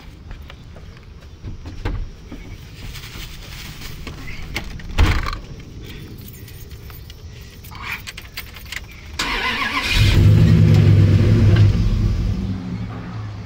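Small clicks and rattles and a sharp thud about five seconds in, then a pickup truck's engine starts about nine seconds in and runs loud for a few seconds before easing off.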